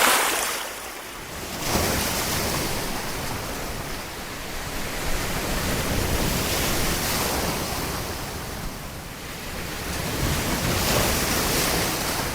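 Strong gusty wind buffeting the microphone: a loud rushing noise that swells and eases every few seconds.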